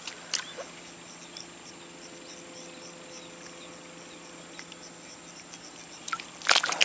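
Steady, high-pitched trilling of insects such as crickets, over a faint low steady hum. A couple of small ticks sound early on, and a short, louder burst of knocks and rustling comes near the end.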